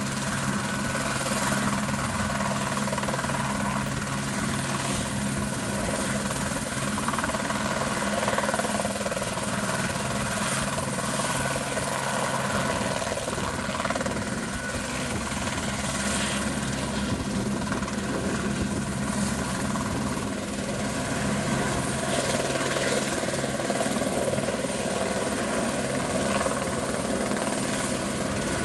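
Helicopter running steadily: a constant mechanical drone of engine and rotor, with several steady tones over an even rushing noise.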